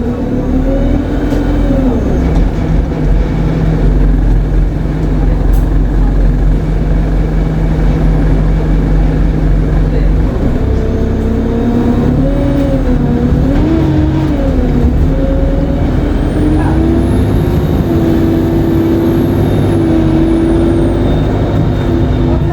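ADL Enviro 200 MMC bus's diesel engine running under load, its pitch shifting up and down, with a high turbocharger whine that rises and then falls about two-thirds of the way through.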